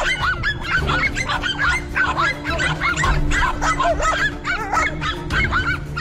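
Several dogs barking in quick, overlapping high-pitched yaps, several barks a second throughout.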